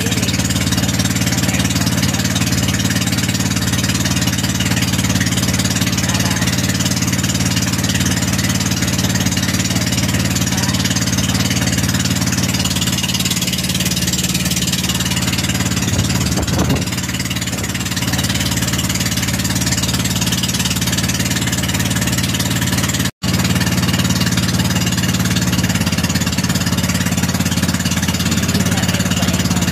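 Engine of a motorized outrigger pump boat running steadily while the boat is underway, heard from on board as an even drone. It breaks off for an instant about 23 seconds in.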